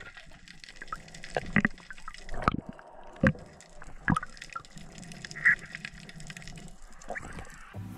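Underwater sound through a diving camera's housing: a low wash of moving water with a handful of sharp clicks and knocks scattered through it.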